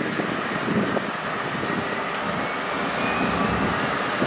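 A large engine running steadily, with a faint whine that rises in pitch a few seconds in.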